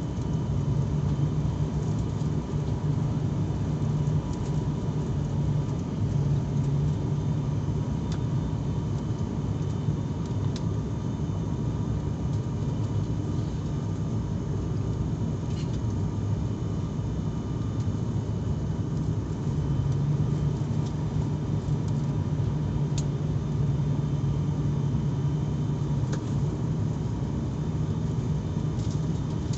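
Airliner cabin noise: a steady low engine drone with a faint constant whine, heard from inside the passenger cabin.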